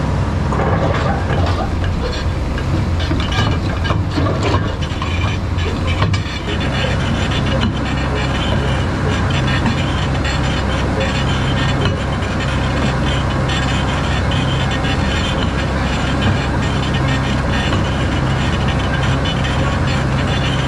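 Scallop fishing boat's diesel engine running steadily under load, with scattered knocks and rattles over it; its note shifts about six seconds in.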